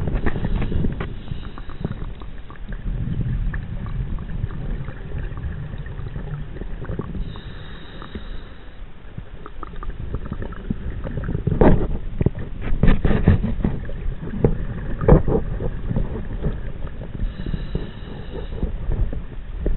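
Scuba diver breathing underwater through a regulator: a thin, high-pitched inhale about a third of the way in and again near the end, and in between a long exhale of bubbles crackling and popping, the loudest sound here, over a steady low rumble of water.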